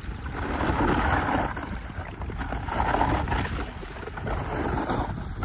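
Water sloshing and splashing as a plastic bucket is swished back and forth in shallow water, coming in two or three swells, over a low rumble of wind on the microphone.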